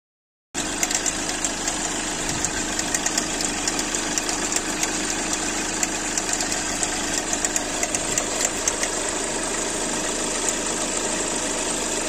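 Hyundai Accent Blue engine idling, with rapid, irregular ticking and rattling from the belt drive over the steady running sound. The owner takes this noise for a faulty alternator pulley. The sound cuts in about half a second in.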